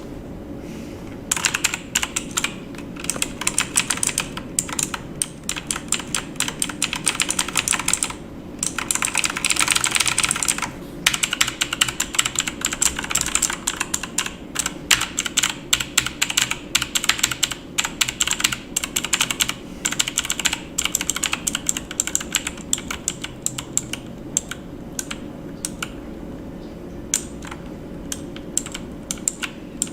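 Typing on a computer keyboard: quick runs of key clicks with short pauses, a dense rapid flurry about nine to eleven seconds in, thinning to scattered keystrokes near the end. A faint steady hum lies underneath.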